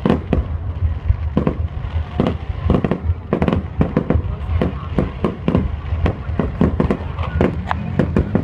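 Aerial fireworks shells bursting in quick, irregular succession, about two or three sharp bangs a second, over a steady low rumble.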